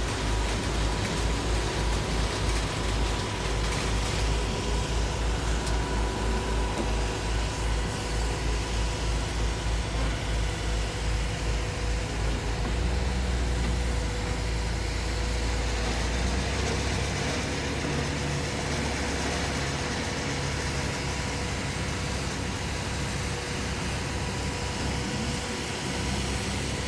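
Electric boat lift running as it lowers a sailboat into the water: a steady mechanical drone with a low, even pulsing that smooths out and drops in the bass about two-thirds of the way through.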